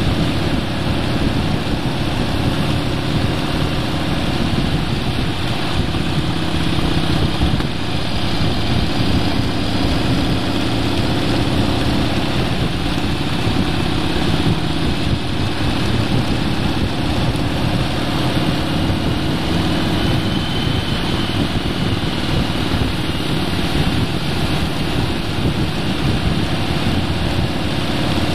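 A vehicle's engine and road noise at a steady cruise, loud and unchanging throughout.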